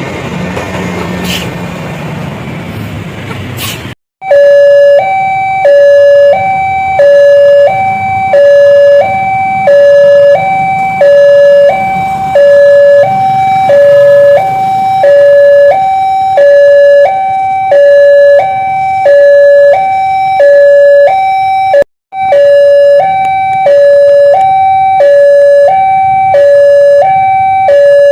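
A noisy rumble cuts off about four seconds in. Then a loud electronic two-tone siren starts, switching between a lower and a higher pitch about once a second, with one brief dropout near the middle.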